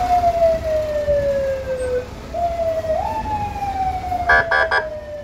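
Fire engine siren giving two short wails, each jumping up quickly and then sliding slowly down in pitch. About four seconds in, three short horn blasts sound over the second wail.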